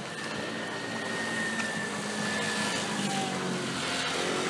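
Many runners' footsteps on asphalt as a dense field of runners passes, blending into a steady rushing noise. A faint high held tone runs through the first three seconds.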